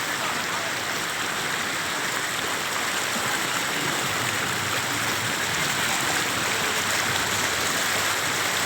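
Floodwater flowing fast, a steady unbroken rush of water.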